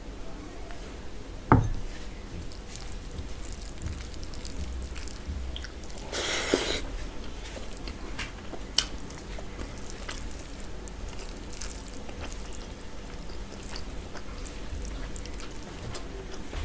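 Fingers mixing rice with dal on a steel plate: soft wet squishing and small clicks against the plate. One sharp thump about a second and a half in, as the glass bowl is set down on the wooden table.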